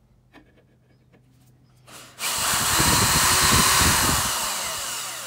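A power drill boring into steel angle iron clamped in a bench vise. It starts loud about two seconds in, with the rough rattle of the bit biting the metal, and eases off slowly toward the end.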